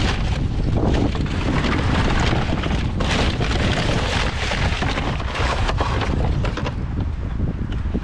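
Wind buffeting the microphone, with rustling and light knocks of rubbish and bin handling as hands search through a plastic wheelie bin.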